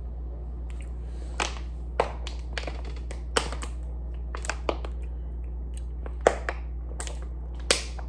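Drinking from a thin plastic water bottle: irregular short crackles and clicks of the plastic and of swallowing, over a steady low hum.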